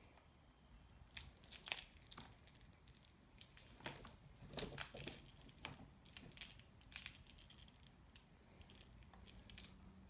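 Faint, irregular clicking and rustling as a cat sprawled on a laptop keyboard bats at a fluffy wand toy, pressing the keys under it. The clicks come in two flurries, the busiest about four to seven seconds in.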